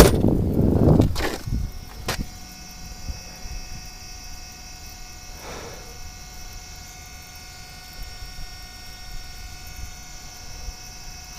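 A loud rushing noise for about the first second and a half, then a small engine idling steadily, a quiet, even hum.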